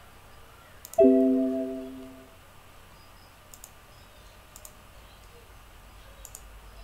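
A single bell-like chime sounds about a second in and fades away over a little more than a second. A few faint clicks are heard here and there.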